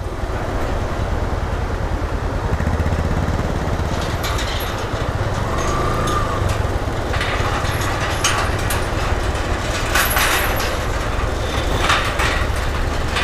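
Motorcycle engine running steadily at low speed while crossing a metal-decked suspension bridge, with the deck slats rattling and clattering under the tyres several times along the way.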